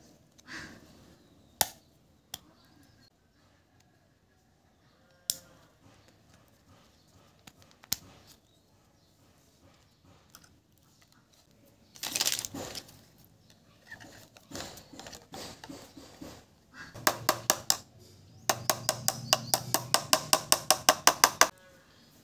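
Scattered clicks and a clatter from handling thin aluminium sheet panels and a small electronics enclosure. Near the end comes a fast, even run of loud clicks, about seven a second, lasting around three seconds.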